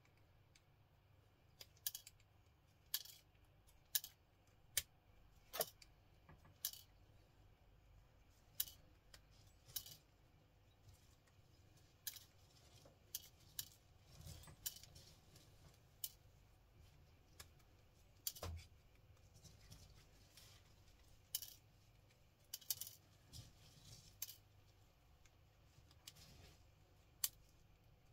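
Small pliers working at the gold-plated pins of a computer cable connector: irregular sharp metallic clicks and ticks, roughly one every second or two and sometimes in quick pairs, with quiet between.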